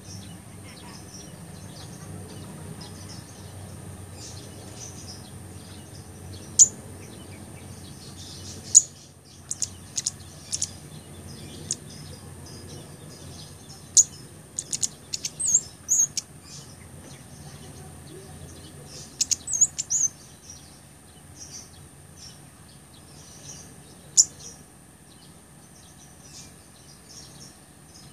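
Blood-breasted flowerpecker (cabe gunung) giving sharp, high-pitched chips and short twittering runs. Single notes are spaced a few seconds apart, with quick clusters of notes in between.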